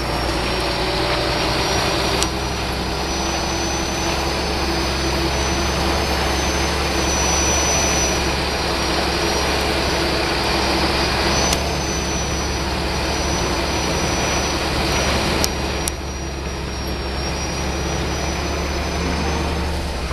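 Heavy truck's diesel engine pulling hard at steady revs on a steep dirt climb under a load of about 50 tonnes, heard from inside the cab, with a steady high whine over the engine note and a few light knocks.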